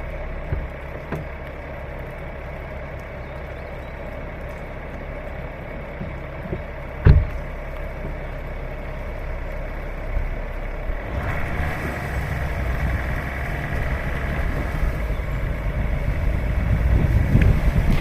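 A vehicle engine running steadily, with a single knock about seven seconds in and a louder rushing noise from about eleven seconds in.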